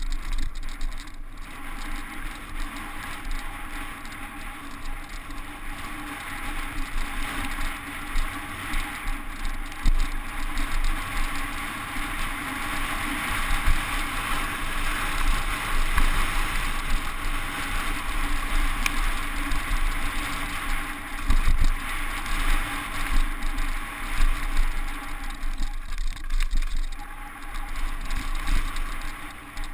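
Downhill mountain bike rattling and clattering over a rocky, gravelly trail, heard from a helmet-mounted camera: a steady rush of wind on the microphone with irregular knocks as the wheels hit stones.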